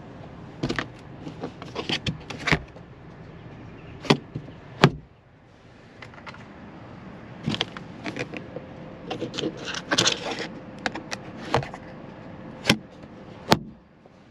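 Handling noises inside a car's cabin: an irregular run of clicks, knocks and rustles as a phone camera is moved about, with sharp knocks about four and five seconds in and again near the end.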